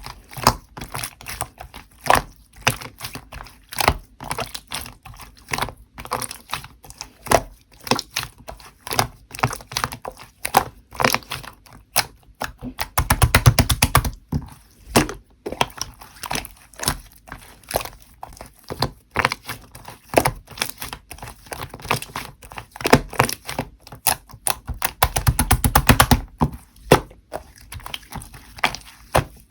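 Hands playing with slime: a steady run of sticky squelches, clicks and pops as the slime is pressed, stretched and folded, with two spells of rapid crackling clicks, about halfway through and near the end.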